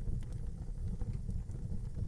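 Wood fire burning in an outdoor fireplace: a steady low rumble with scattered sharp crackles and pops of burning wood.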